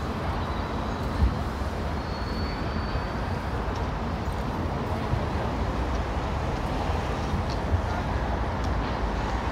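Steady city street noise: a continuous low traffic rumble with a couple of faint knocks.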